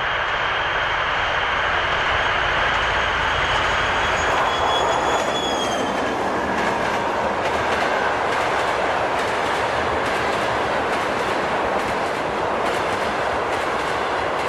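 Recorded sound of a full-size diesel locomotive passing with a train. The engine noise and a high whine drop in pitch as it goes by, about five seconds in, and then the coaches' wheels click over the rail joints in a regular clickety-clack.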